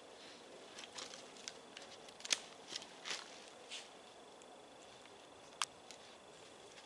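A canvas rucksack being handled and hung on a tree: a run of rustles, scrapes and small clicks of bag and fittings in the first few seconds, the loudest about two seconds in, then one more sharp click a little before the end.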